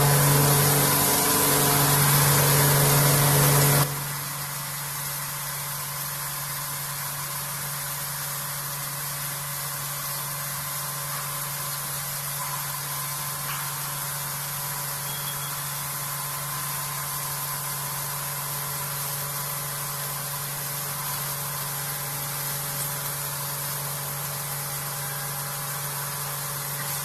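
CNC vertical machining centre face milling aluminium: a loud steady cutting noise over the spindle's hum, which drops off suddenly about four seconds in, leaving the machine running with a steady low hum and a hiss.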